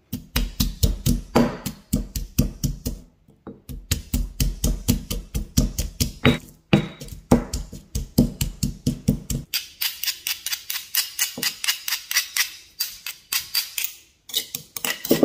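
Granite mortar and pestle pounding garlic cloves: a steady run of dull stone-on-stone thuds, about four a second, with a brief pause early on. About two-thirds of the way through, the heavy thuds give way to lighter, sharper taps. Near the end, a metal spoon scrapes the crushed garlic around the stone bowl with a thin ringing scrape.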